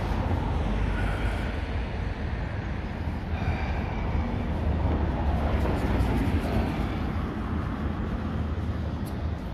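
Road traffic, cars and buses passing, heard as a steady low rumble.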